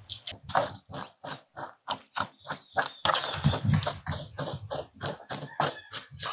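Toothed metal fish scaler scraping the scales off a yellow-eyed kole, a small surgeonfish, in quick repeated strokes of about four to five a second, with a brief denser patch of scraping a little after the midpoint.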